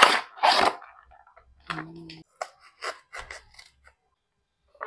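Packaging being opened: a cardboard food box tearing in the first second, then scattered crinkles and snips as scissors cut into a foil retort pouch.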